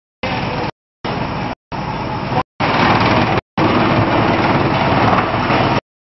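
Belt-driven 55 kW disc wood chipper running, a loud steady mechanical din, louder from about halfway. It is cut by several short dead-silent gaps.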